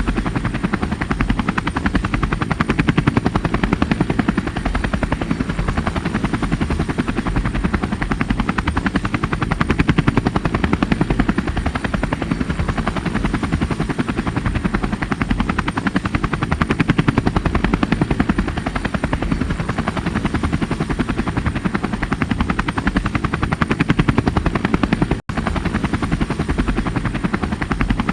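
Helicopter rotor chop: a loud, steady, rapid beating of the rotor blades that runs without letup, with a faint high steady whine above it. The sound cuts out for an instant about 25 seconds in and comes straight back.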